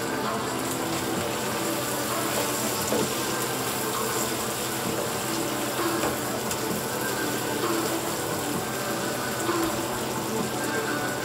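Sauce with sliced sweet peppers and onions bubbling and sizzling steadily in a frying pan on a gas burner, with a spoon stirring it about halfway through.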